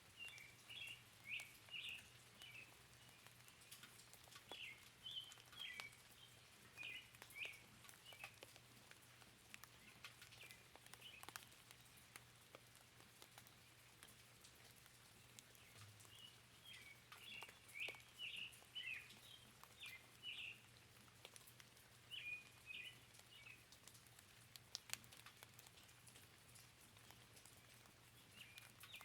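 Faint forest rain with scattered raindrop ticks and a bird chirping in quick short notes, in two bouts: one at the start and another about halfway through.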